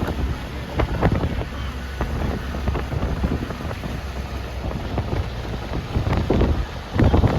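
Strong, gusty storm wind blowing hard across the microphone with heavy low rumbling buffeting, swelling in repeated gusts, the strongest near the end.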